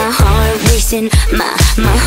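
Electropop dance track with a steady kick drum about twice a second under deep bass and a wavering melodic line.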